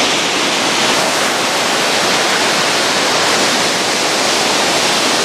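Steady rushing noise of ocean surf on a beach.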